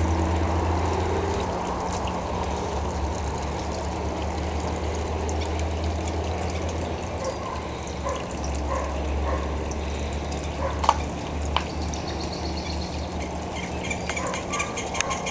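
Water trickling and splashing from a small rock waterfall fountain into a garden pond, over a low steady hum. Two sharp clicks come a little past the middle.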